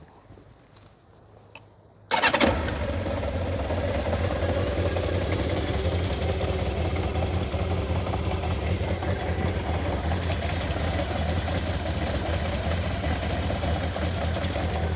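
1996 Kawasaki Zephyr 750's air-cooled, carburetted inline-four engine starting about two seconds in and then idling steadily, running smoothly.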